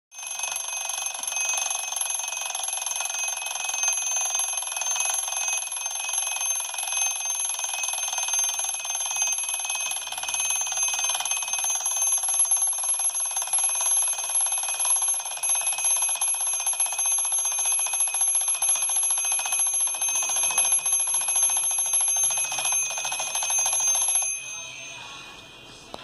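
Herweg twin-bell alarm clock ringing, its hammer rattling against the two metal bells in one loud, continuous ring that cuts off suddenly about 24 seconds in.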